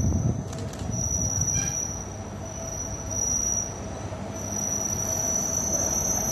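EM120 track inspection car approaching along the rails: a steady low rumble with a steady high-pitched squeal over it.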